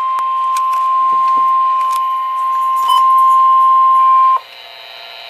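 Single steady alert tone of about 1050 Hz, the NOAA Weather Radio warning alarm tone that announces a severe thunderstorm warning. It cuts off sharply about four seconds in, leaving a faint radio hiss.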